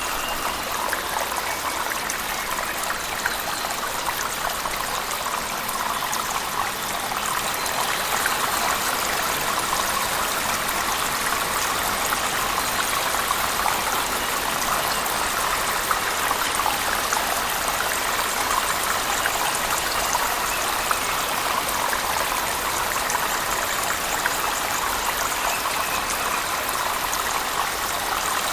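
Cave waterfall mixed with heavy rain: a steady rush of falling water with a dense spatter of fine drops over it.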